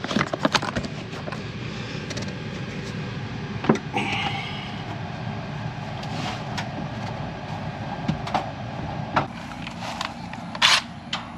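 Air-conditioning system's indoor blower running with a steady whoosh while the compressor stays off, with a few light clicks near the start and a sharp knock a little under four seconds in.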